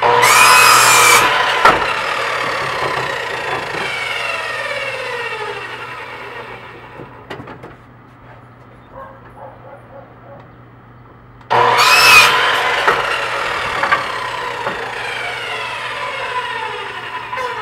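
Electric miter saw making two cuts through wooden deck spindles. Each time the motor starts with a whine, the blade cuts through in about a second, and then the blade winds down with a long falling whine. Between the two cuts there are a few light knocks.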